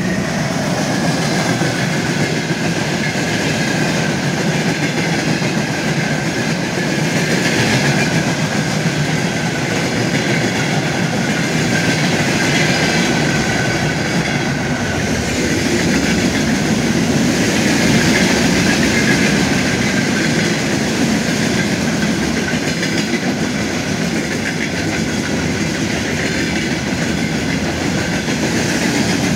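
Freight train wagons (tank cars, open wagons and hopper cars) rolling past at close range, a steady loud rumble and clatter of wheels on the rails with a thin high ringing tone running through it.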